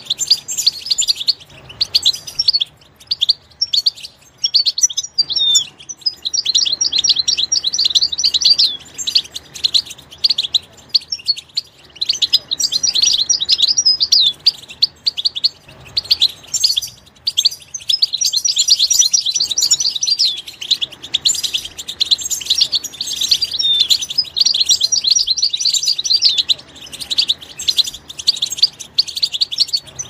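European goldfinch singing: long runs of rapid, high twittering, broken by a few short pauses.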